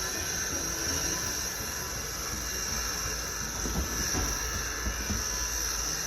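A steady, even rushing hiss over a low rumble, like a running blower or fan, with no change in level.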